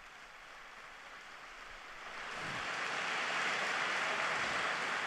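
A large audience applauding. It is faint at first and swells about two seconds in to a steady round of clapping.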